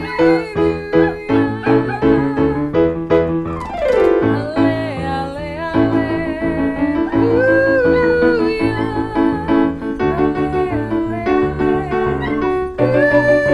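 Piano music with a wavering, wailing voice line over it, including a long falling glide about four seconds in.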